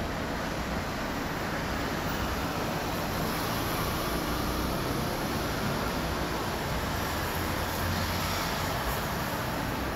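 Airbus A330-243 with Rolls-Royce Trent 700 turbofans at climb-out thrust: a steady jet rumble as the airliner climbs away.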